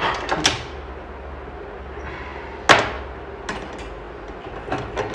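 Several sharp knocks over a low steady hum, the loudest about two and a half seconds in.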